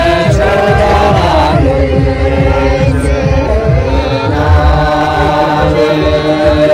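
A group of men and women chanting a ritual song together in unison, with long held notes that rise and fall slowly.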